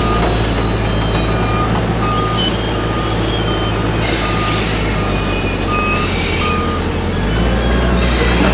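Reversing alarm of a construction vehicle beeping at an even pace, about one and a half beeps a second, over the steady hum of a diesel engine.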